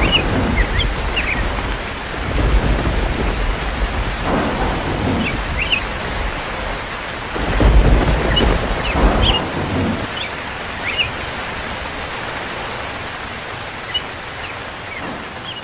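Thunderstorm sound effect: steady heavy rain with rolling rumbles of thunder, the loudest rumble about halfway through. The thunder dies away after about ten seconds, leaving only the rain.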